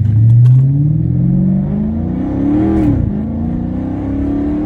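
Chrysler 300 SRT8's 6.4-litre Hemi V8 accelerating hard at full throttle. The engine note rises steadily, drops briefly at an upshift about three seconds in, then climbs again.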